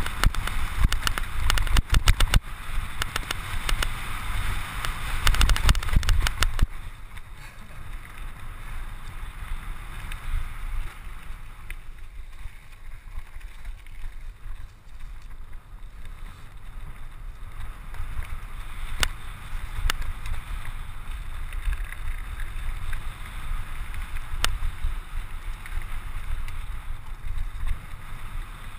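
Wind buffeting the camera microphone on a Scott Scale 29er hardtail mountain bike descending a forest singletrack, with the tyres rolling over leaves and dirt and the bike rattling over rough ground. It is loud with dense rattling for about the first six seconds, then settles into a quieter rush with a couple of sharp clicks later on.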